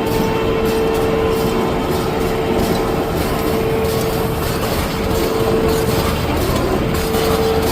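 Automatic tissue-paper log saw and packaging machine running on test: a steady mechanical din with a constant hum.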